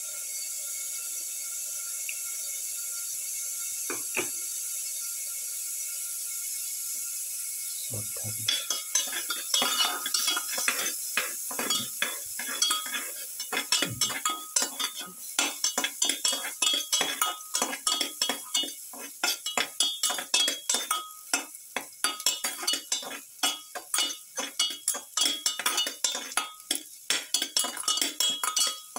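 Garlic cloves sizzling in hot oil in a steel pan with a steady hiss. From about eight seconds in, a metal spatula stirs them, scraping and clinking rapidly against the pan over the sizzle.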